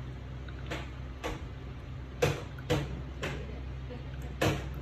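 Sharp clicks, six of them at uneven intervals, as a metal nail pick works and catches at the edge of a big toenail, over a steady low hum.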